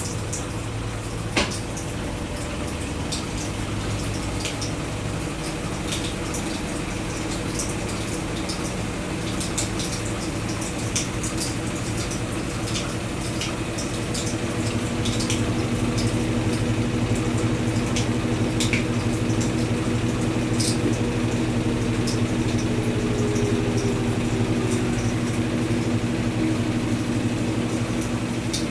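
Brastemp Tira Manchas Pro 12 kg washing machine running with a motor hum, water sloshing and draining, and scattered light ticks and drips. About halfway through, the hum grows louder and steadier, and a faint falling whine comes in near the end.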